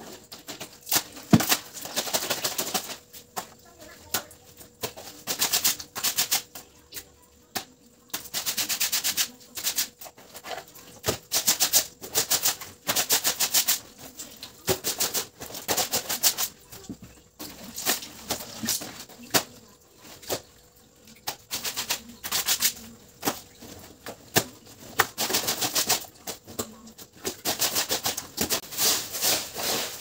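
Wet laundry being scrubbed by hand on a soapy tiled floor: repeated rasping strokes in quick runs, with short pauses between runs.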